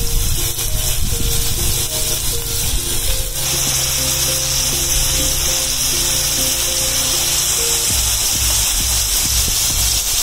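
Oil sizzling steadily as marinated chicken pieces shallow-fry in a flat pan, the hiss growing louder about three and a half seconds in as more pieces go into the oil. Background music plays over it.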